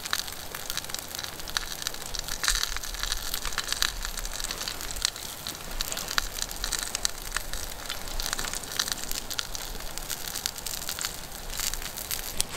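Wood campfire crackling, with irregular sharp pops and snaps over a steady hiss.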